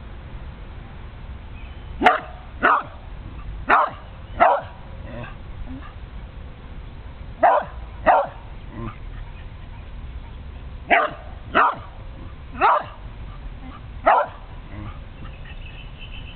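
Karelian Bear Dog barking at a turtle: about ten single sharp barks, mostly in pairs about half a second apart, with pauses of a few seconds between the pairs.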